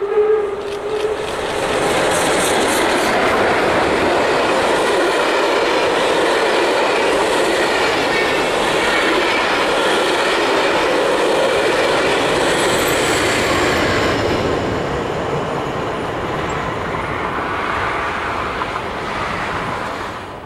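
Steam-hauled passenger train passing close by: the tail of a steam whistle blast in the first second, then the locomotive and a long rake of coaches rolling past, their wheels running loudly on the rails. A brief high squeal comes about two-thirds through, and the sound tails off as the last coach clears near the end.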